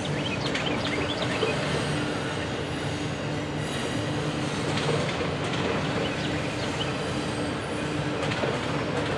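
Double-stack container train cars rolling past at a steady pace, a continuous rumble of wheels on rail. Thin, high wheel squeals break out in the first second or so and again around four to five seconds in.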